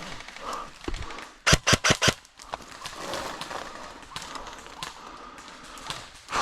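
An airsoft gun firing a quick burst of about five shots, roughly two seconds in.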